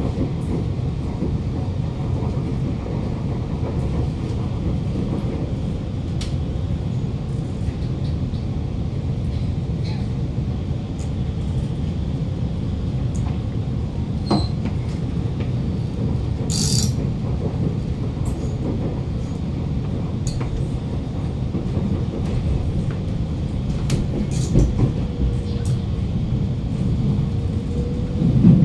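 Cabin running noise of an Alstom Movia R151 metro train in motion: a steady low rumble from the wheels and running gear, with scattered light clicks and a brief high hiss about halfway through.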